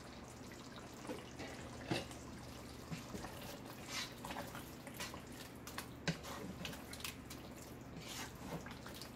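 Wooden spatula stirring thick chicken curry in a pot: faint wet squelches and light, irregular taps against the pot, over a low steady hum.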